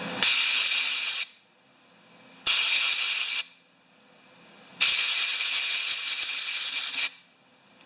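Three hissing blasts of compressed air from a blow gun, drying and cleaning a fuel-soaked two-stroke fuel filter: the first two about a second each, the last about two seconds long.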